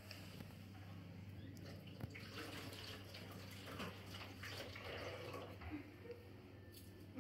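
Faint room sound: a steady low hum under soft rustling and a few light knocks.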